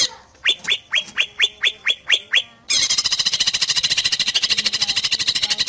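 Cucak ijo (green leafbird) singing loudly: a quick run of about nine sharp falling whistled notes, then a fast, high, continuous chattering trill lasting about three seconds.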